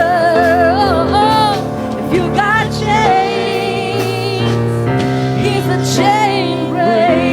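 Gospel worship music: a singer holding wavering, vibrato notes over sustained keyboard chords.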